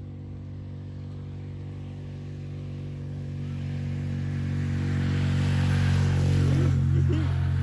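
A motor engine running steadily as it approaches, growing louder to a peak about six to seven seconds in, then starting to fade as it passes.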